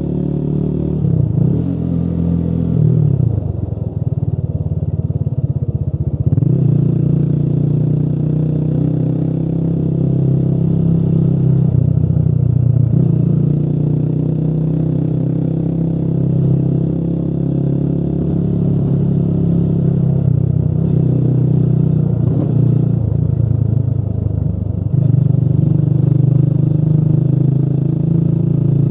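Motorcycle engine running under way. The engine note drops and climbs again several times with throttle changes.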